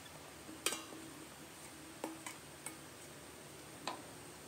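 A metal bowl and a ladle clink and knock against a cooking pan as chopped king oyster mushrooms are scraped out of the bowl into the broth: about five light, scattered clinks.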